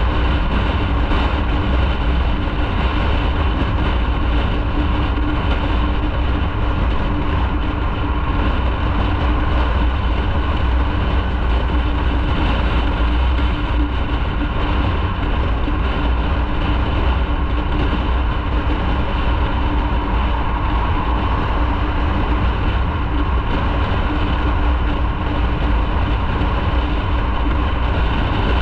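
Motorcycle being ridden at a steady speed: the engine running under a loud, even rumble of road and wind noise, with a constant low hum.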